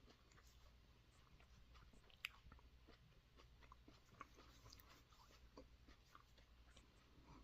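Faint close-up chewing of a raw superhot chili pepper: small wet mouth clicks scattered throughout, with one sharper click a little over two seconds in.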